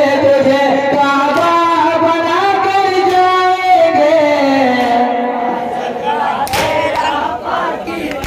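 Male voices singing a Muharram nauha in long, drawn-out held notes, with the melody sliding down about halfway through. A couple of sharp slaps sound near the end.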